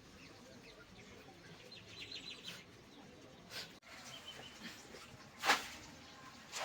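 Faint birds chirping over low background noise, with a couple of sharp clicks; the loudest click comes about five and a half seconds in.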